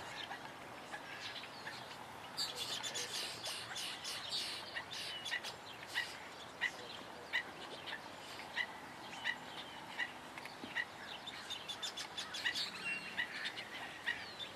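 Birds chirping: one short, sharp note repeated steadily about once every two-thirds of a second, with a busier run of chirps about two to four seconds in.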